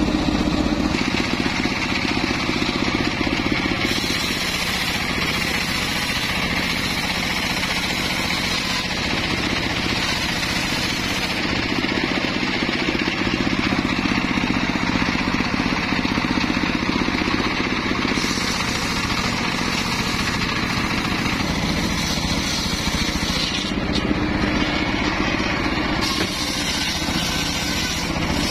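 Homemade circular sawmill running steadily as its large blade rips mahogany boards, with the sound of the blade in the wood coming and going in about three long passes.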